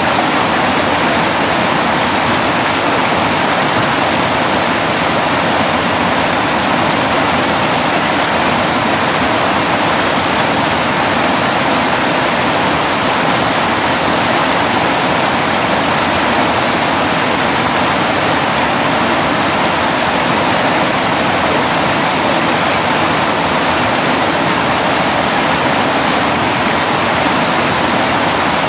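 Mountain creek rushing over boulders in whitewater rapids: a loud, steady, unbroken rush of water.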